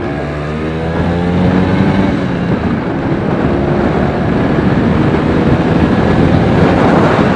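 Vespa P200E's 200 cc two-stroke single-cylinder engine accelerating, its pitch rising over the first two or three seconds as the scooter pulls onto the road. After that, steady engine noise mixed with a growing rush of wind on the helmet-camera microphone as speed builds.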